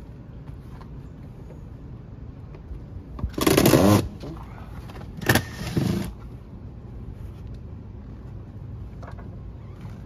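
Cordless drill-driver running in two short bursts about a second and a half apart, its motor pitch rising and falling as it turns the door-hinge screws.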